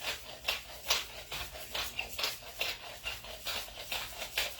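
A utensil stirring or tossing food in a bowl: soft, repeated scraping strokes about two a second.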